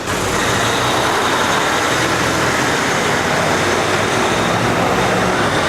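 Steady rush of city street traffic noise, with a faint steady high whine running through it.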